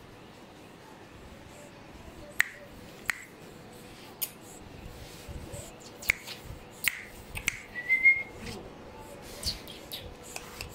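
A pug puppy gives one short, high, slightly rising whimper about eight seconds in, among scattered sharp clicks roughly a second apart.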